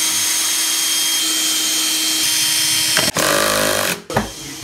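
Cordless drill/driver with a screwdriver bit backing screws out of a wooden crate lid. The motor whines up to speed and runs steadily for about three seconds, stops briefly, runs again for under a second and stops.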